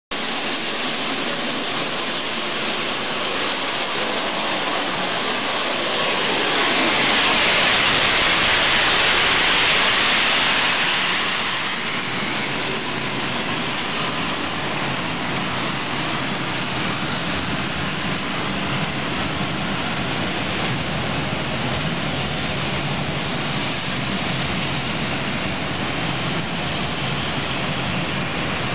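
Steam locomotive, a GWR Castle class 4-6-0, running into the station: a loud hiss swells as it passes, about six seconds in, and fades about twelve seconds in. It is followed by the steady rumble and rush of its coaches rolling past on the rails.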